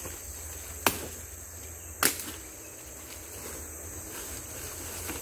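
Two sharp machete chops, about a second apart, cutting into brush or wood. A steady high buzz of forest insects runs underneath.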